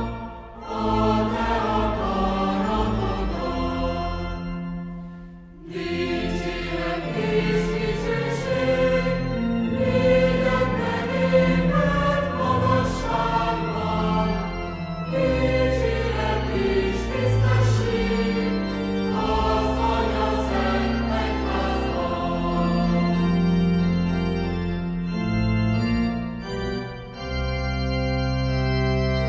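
Hymn singing in Hungarian with organ accompaniment, with a short break about five seconds in before the next lines.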